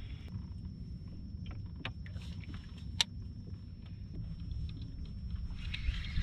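Steady low background rumble in a small boat, with scattered light clicks and knocks of fishing tackle being handled and one sharper click about three seconds in.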